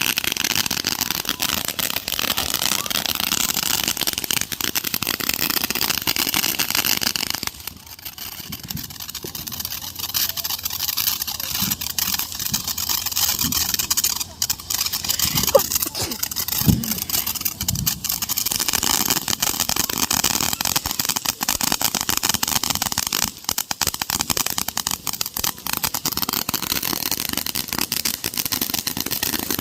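Consumer firework going off on the ground: a steady hiss thick with fine crackling pops, which drops briefly about seven seconds in and then carries on.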